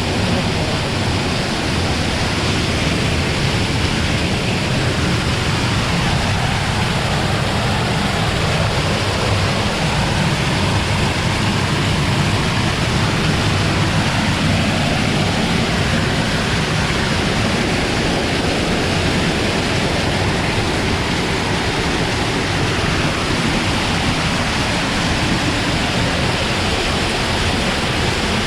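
Mountain stream water rushing, a loud, steady, even noise of flowing and falling water.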